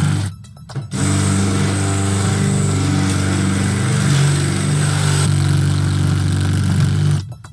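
Power drill running under load, boring into an Ultion lock cylinder. It stops briefly just after the start, starts again about a second in, and runs steadily until it cuts off near the end.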